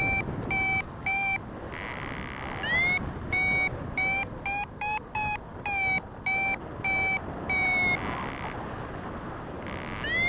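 Paraglider variometer beeping its climb tone: short electronic beeps come in groups, speed up and rise a little in pitch around the middle, then slow and stop, and one more beep starts near the end. Faster, higher beeps mean the glider is climbing in lift. Wind hiss runs underneath.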